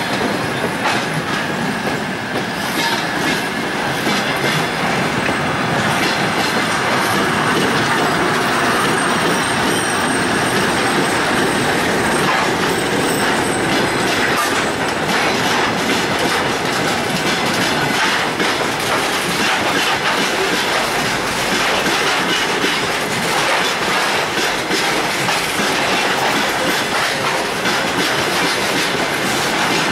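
Freight train of open hopper wagons rolling steadily past close by, its wheels clicking rhythmically over the rail joints.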